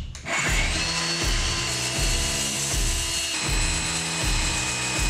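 DeWalt cordless circular saw spinning up about a third of a second in and cutting through a spruce board, a steady high motor whine over the noise of the blade in the wood. Background music with a steady beat plays underneath.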